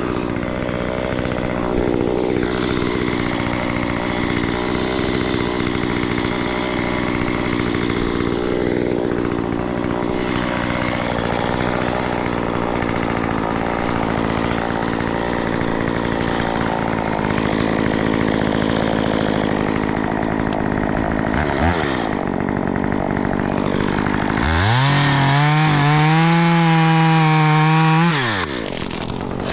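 Gasoline chainsaw running, its pitch wavering through the first ten seconds or so. Near the end it revs up to full throttle for about four seconds, then drops back.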